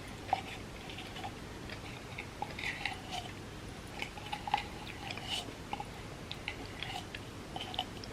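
Chewing of soft-baked chocolate chip cookie cups layered with chocolate wafers: many small, irregular mouth clicks and crackles over a faint steady hiss.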